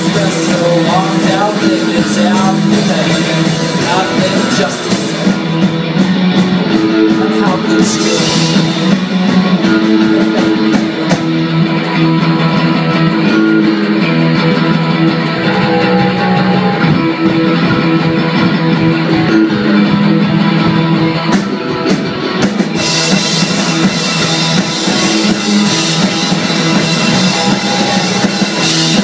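Live rock band playing an instrumental stretch, loud and steady: electric guitars, bass and drum kit. The bright hiss on top thins out for much of the middle and comes back in full about 23 seconds in.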